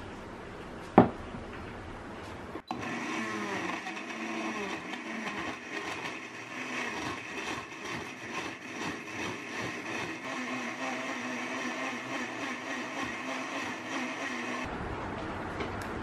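Glass-jar countertop blender running, crushing ice cubes with chunks of apple, banana and beet into beet juice. The motor starts a few seconds in with a wavering pitch as the chunks are caught, settles to a steady whine, and stops near the end. A single sharp click sounds about a second in, before the motor starts.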